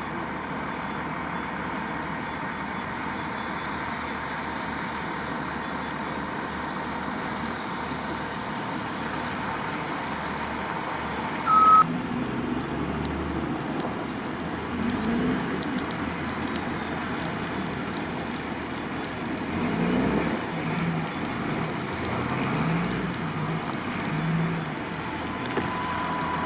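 Steady street noise of fire-scene vehicles and traffic running, with one short, loud beep about twelve seconds in.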